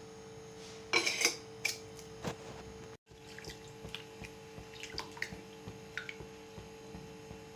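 Kitchen vessel and utensil clatter: a burst of metal clinks about a second in, then lighter scattered taps and drips as things go into a pot of water. A faint steady hum runs underneath.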